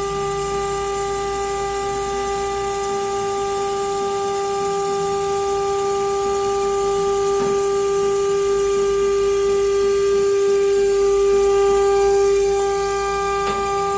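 Stone CNC countertop machine's spindle motor running with a steady high whine.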